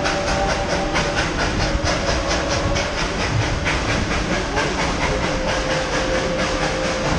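Tweetsie Railroad's steam locomotive #190 working steadily as it pulls the train: quick, even exhaust chuffs at about five beats a second over a constant hiss and the rumble of the rolling cars. A faint steady tone joins about five seconds in.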